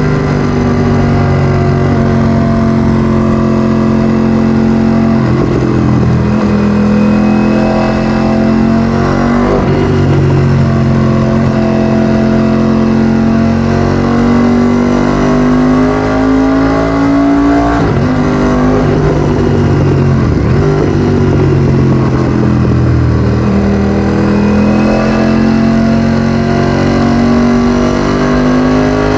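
Ducati Streetfighter V4S's 1103 cc Desmosedici Stradale V4 running through an Akrapovic exhaust while riding, loud throughout. The engine note rises and falls in slow glides, with a handful of short breaks in the note.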